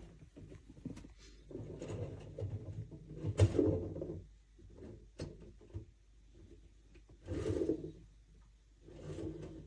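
Handling noises: irregular knocks, scrapes and rubbing of something being moved about, with a sharp knock about three and a half seconds in and further clattering bursts later.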